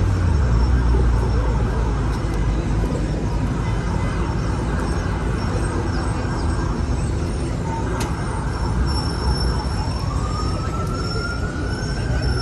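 Steady street traffic rumble in a city avenue. From about ten seconds in, a distant emergency-vehicle siren rises in pitch and begins to fall again near the end.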